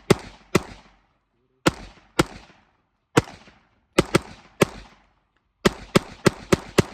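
AR-15-style SPR rifle fitted with a Super Safety trigger, fired fast: about fourteen sharp shots in uneven pairs and short strings, each with a short echoing tail. The last string comes quickest, about four or five shots a second.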